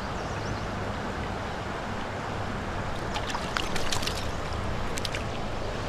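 Creek water flowing steadily around the angler's legs. From about three seconds in comes a flurry of small, sharp splashes and drips as a trout is handled in a landing net at the water's surface.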